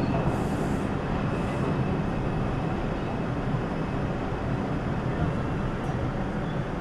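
Steady rumble and hum inside a New York City subway car on the 5 express line, with a couple of short faint hisses near the start.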